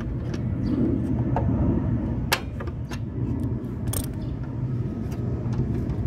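Sharp metallic clicks of an Allen key and adjustable wrench working a disconnect switch's terminal lugs, two clear ones a little over two seconds in and at about four seconds, with a few fainter taps. Under them runs a steady low machinery drone.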